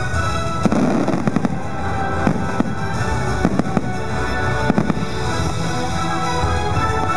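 Fireworks bursting in a string of sharp bangs, some in quick pairs, over the show's orchestral music playing on loudspeakers.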